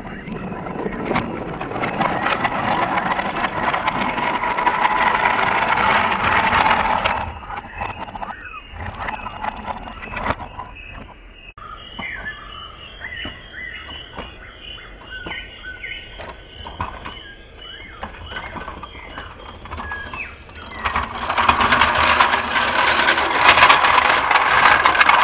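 Toy train rolling along plastic track with a steady rattling of wheels on track, loud for the first several seconds and again for the last few. In between it is quieter, with scattered clicks.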